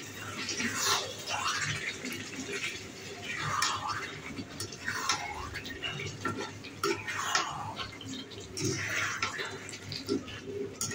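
Chicken and potato pieces sizzling in a thick spiced gravy in a pan while a spatula stirs and scrapes through them in repeated strokes, about one every one to two seconds. This is the kashano stage, frying the meat down with its spices until the oil separates.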